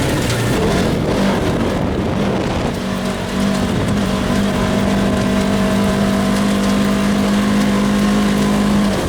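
Polaris RZR side-by-side driving along under power, its engine note settling and holding steady from about three seconds in over constant road and chassis noise.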